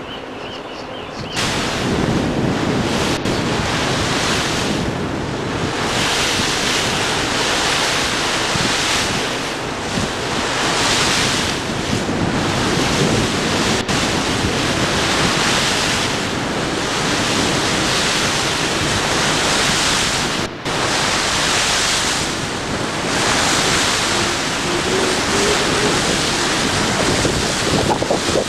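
Wind buffeting the camcorder microphone over the rush of water, starting suddenly about a second in and swelling and easing in gusts.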